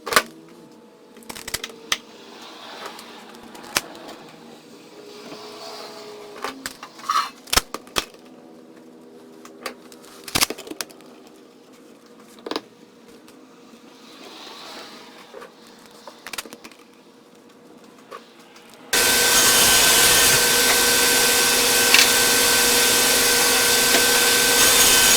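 Scattered knocks and clatter of wood pieces and tools being handled. Then, about three quarters of the way in, a loud electric power tool motor starts and runs steadily, with a constant whine, for about six seconds.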